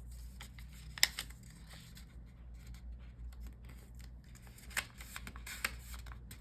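Origami paper being handled and folded, with crisp crinkles and rustles, the sharpest about a second in and again near the end.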